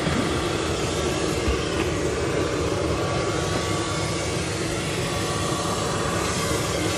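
Steady rushing hum of a parked private jet running on the ground, with faint steady whining tones over it.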